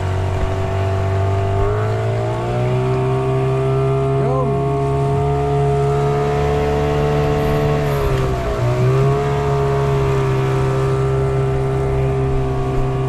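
Hidea 15 hp outboard motor running under way. Its pitch rises as the throttle opens about two seconds in, dips briefly past the eight-second mark, then holds steady again.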